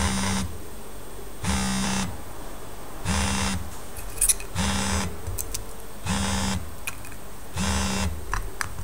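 Mobile phones buzzing on a glass plate in repeated pulses, each about a second long and one every second and a half, like a phone's vibrate alert rattling against the glass. A few light clicks fall between the buzzes.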